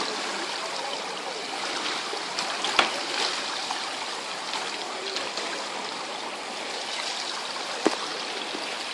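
Pool water sloshing and splashing as a swimmer kicks, a steady watery hiss with two sharp slaps, one about three seconds in and one near the end.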